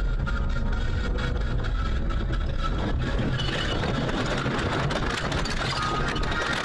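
Steady noise of a car in motion, heard from inside the cabin: engine and tyres running on a snowy road.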